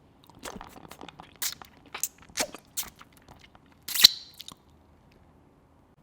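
Crunchy food being bitten and chewed close to the microphone: a run of sharp crunches over about four seconds, the loudest one near the end.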